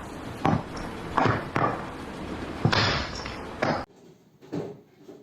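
A series of sharp knocks and thuds, about five in the first four seconds. The sound then drops suddenly to quiet, with one softer knock after it.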